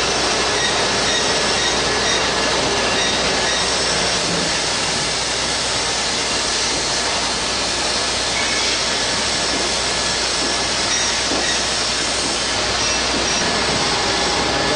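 Steady, unchanging mechanical noise, a dense hiss with a low hum underneath, with no starts or stops.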